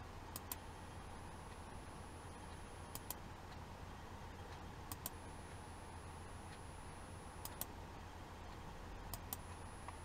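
Ultrasonic probe test rig: a faint high whine switches on and off with soft clicks, sounding about two and a half seconds at a time, three times, over a low steady hum.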